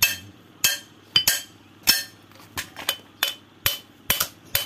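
Metal tool striking an electric motor stator's steel core: about a dozen sharp, ringing metallic clinks at an uneven pace of two to three a second, as the coil windings are knocked out for scrap.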